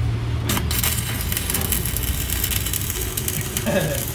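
Electric arc welding on the car's frame: the arc strikes about half a second in and then crackles and spits steadily as an engine mount is welded on.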